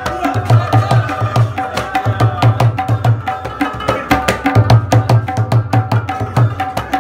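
Tabla played fast: deep booming strokes on the bass drum of the pair under crisp, ringing strokes on the treble drum, in a driving, even rhythm. The bass strokes drop out briefly about four seconds in, then resume.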